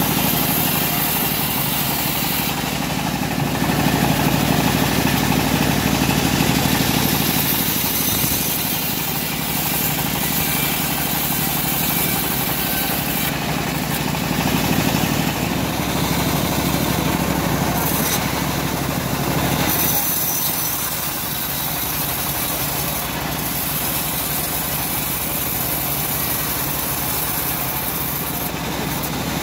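Homemade bandsaw sawmill running, its blade cutting lengthwise through a teak log over the steady hum of the machine's motor. The noise swells a little about three to eight seconds in and eases slightly about twenty seconds in.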